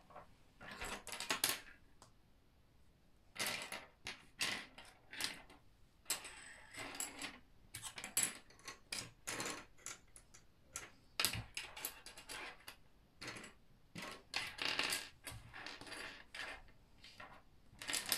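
Plastic Meccano Junior construction-toy parts (strips, bolts and nuts) handled and set down on a wooden tabletop: irregular clicks and clatters, with short rustles in between.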